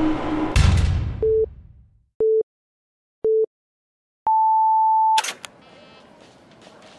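Cartoon sound effects: a heavy thud with a rumble dies away, then three short electronic beeps come about a second apart, followed by one long beep an octave higher, in the pattern of a time signal. A sharp crash cuts off the long beep.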